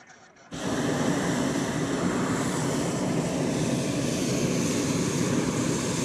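Hot air balloon's propane burner firing: a loud, steady rushing noise that starts abruptly about half a second in and holds without a break.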